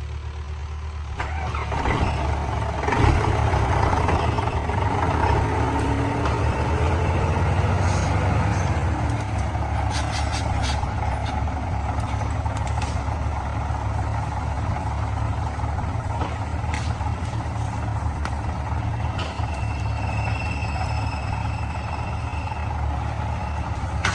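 Heavy diesel engine running steadily under load, growing louder about two seconds in.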